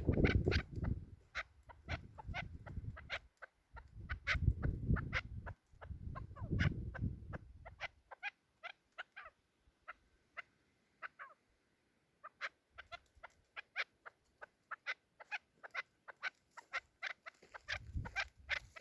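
Chukar partridge calling: a long run of short, sharp chuk notes, several a second. A low rumbling noise runs under the first eight seconds or so.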